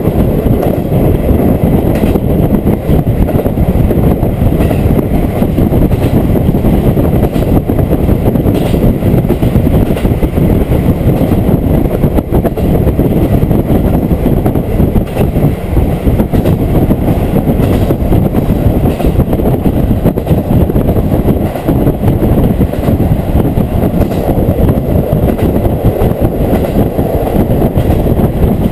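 Diesel railcar under way, heard from inside the carriage: a loud, steady rumble of wheels on rail and the running engine, with a few faint clicks.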